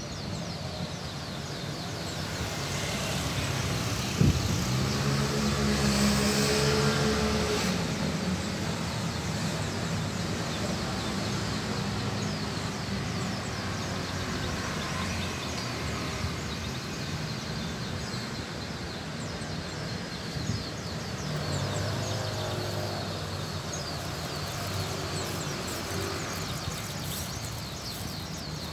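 Engine hum of a passing motor vehicle over steady outdoor background noise, swelling about six seconds in and again around twenty-two seconds, with a single sharp knock at about four seconds.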